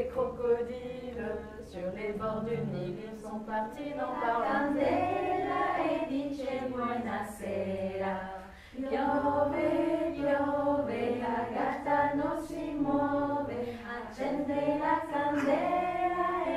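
Several women singing a nursery rhyme together, with a short break a little past the middle before the singing picks up again.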